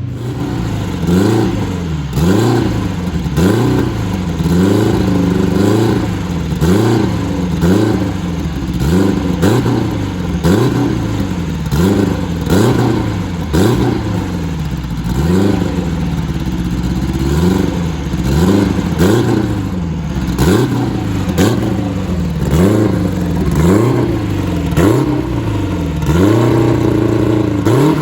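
Vintage race car engine revved over and over, its pitch rising and falling back about once a second.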